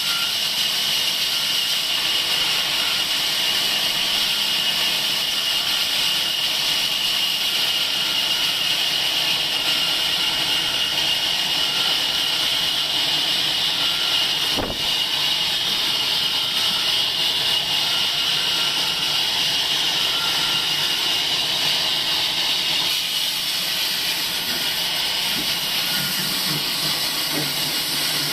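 Sawmill saw running with a steady high hiss, with one sharp knock about halfway through.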